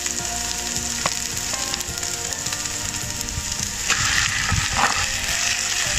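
Oil sizzling in a hot cast-iron Dutch oven as floured chunks of turkey breast are tipped in onto browned onions and curry paste; the sizzling gets louder about four seconds in as the meat goes in.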